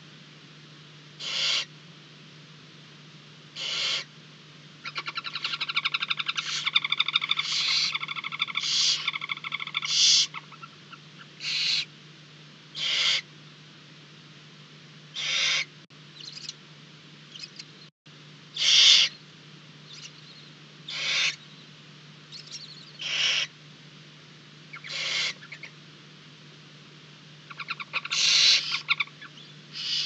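Barn owls in a nest box: a short hissing call repeats about every two seconds, with a rapid twittering chatter from about five to ten seconds in and again near the end. A steady low electrical hum runs underneath.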